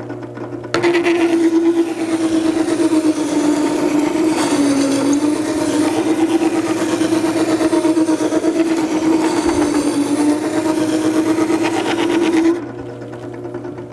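Makita 98202 horizontal wet-wheel sharpener running with a steady motor hum, a planer knife clamped in its jig grinding against the spinning water stone. About a second in, a loud scraping grind with a wavering pitch sets in as the knife meets the stone, and it stops shortly before the end.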